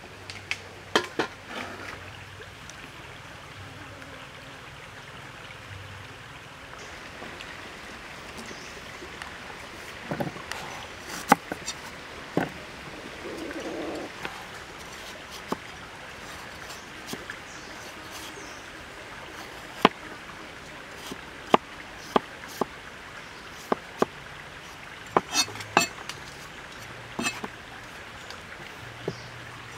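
A large knife striking a round wooden chopping board as a root is peeled and sliced: scattered sharp knocks, some in quick clusters, over a steady background hiss.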